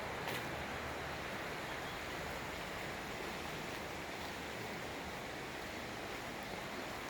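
Steady rush of flowing water, with a brief click just after the start.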